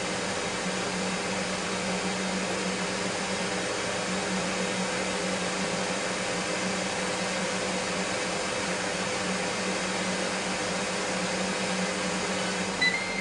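Ninja Foodi air fryer's fan running steadily with a whooshing hum while the unit is in its cool-down phase. Near the end the hum dies away and a short electronic beep sounds as the cycle finishes.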